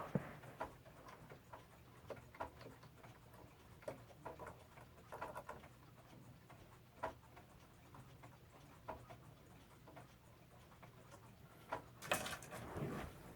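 Faint ticking of mechanical pendulum clocks, the clicks coming roughly every half second but unevenly, as if from more than one clock, over a low steady hum. About twelve seconds in there is a louder burst of handling noise.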